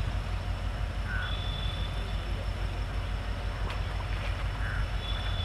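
A WDP4D diesel locomotive's engine running with a steady, deep rumble, with a few brief high chirps above it.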